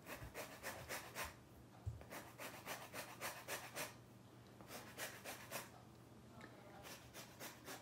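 A lemon being zested on a small flat handheld metal grater: faint, quick scraping strokes of the peel across the rasp, about four a second, in several short runs with brief pauses between them.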